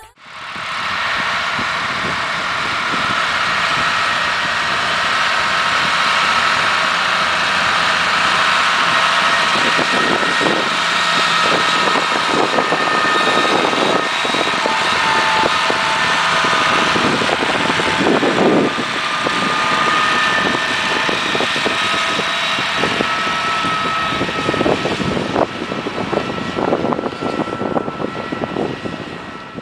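Tractor engine running steadily under load while pulling a disc harrow over dry field soil. It is mixed with dense rushing noise and irregular rattles, and a faint steady whine sits above it.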